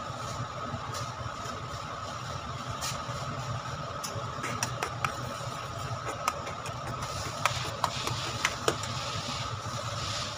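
A steel spoon clinking sharply against a steel kadai about ten times while stirring sugar syrup, mostly in the middle of the stretch, over a steady background hum.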